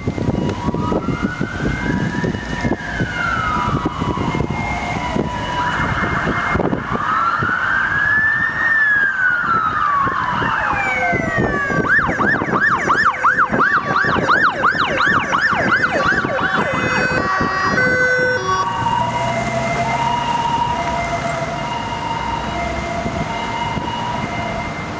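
Ambulance electronic sirens: two slow rising-and-falling wails, then a switch about halfway through to a fast yelp, and near the end an alternating two-note hi-lo tone, over low engine and traffic noise.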